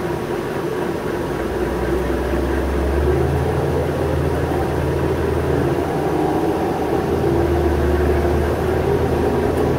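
Engine and drivetrain of a New Flyer C40LF natural-gas transit bus, heard from inside the cabin while under way. The low engine note changes step about three seconds in, and the sound grows slightly louder.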